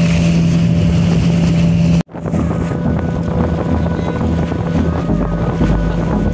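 Small fishing boat's motor running steadily at speed, with water rushing past and wind buffeting the microphone. The sound cuts out abruptly for a moment about two seconds in, then the motor noise resumes.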